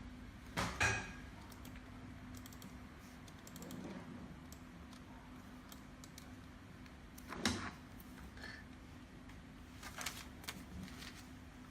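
Clicking and tapping at a computer keyboard and mouse: scattered light clicks with louder clatters about half a second in, at about seven and a half seconds, and around ten seconds, over a faint steady hum.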